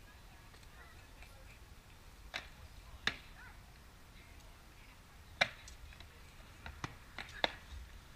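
Rattan sword blows landing on shields and armour in SCA armoured-combat sparring: about six sharp cracks at uneven intervals, the loudest about three, five and a half and seven and a half seconds in.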